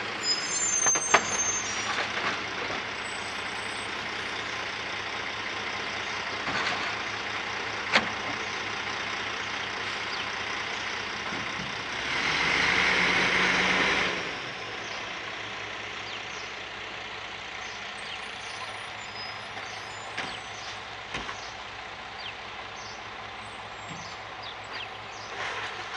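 Heil DuraPack 5000 rear-loader recycling truck's engine running as the truck pulls forward along the street. A loud air-brake hiss lasts about two seconds near the middle, and scattered sharp knocks come throughout.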